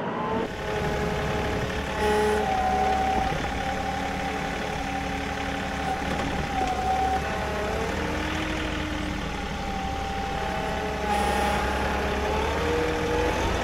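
John Deere compact utility tractor's diesel engine running under load during loader work. A whine over the engine slides up and down in pitch as the tractor drives and maneuvers.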